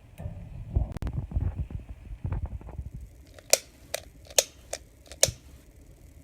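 Low knocks and rustling from hands working on the gas wall heater, then five sharp metallic clicks, about two a second.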